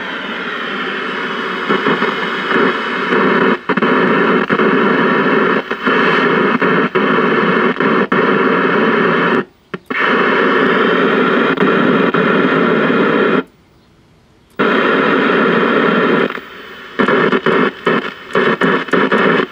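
Loud static hiss from a 1968 RCA Victor tube television's speaker. It cuts out abruptly twice, then crackles on and off in quick stutters near the end as the on/off-volume control is worked. The cutting out is a sign of the set's bad power switch.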